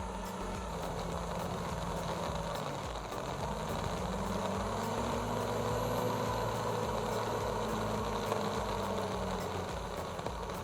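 Caterpillar D7 bulldozer's diesel engine running; its pitch rises about three seconds in and eases back down toward the end.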